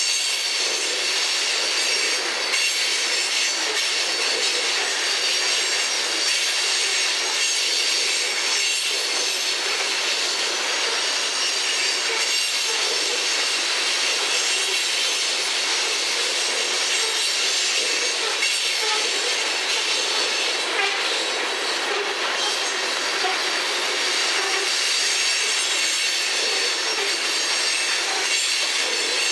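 Coal hopper cars of a freight train rolling past with steady wheel-on-rail noise. A continuous high-pitched wheel squeal runs over it, with faint clicks as the wheels cross rail joints.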